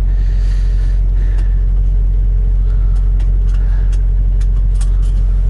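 Semi-truck diesel engine running steadily, heard from inside the cab as a constant low rumble and hum, with a few faint clicks.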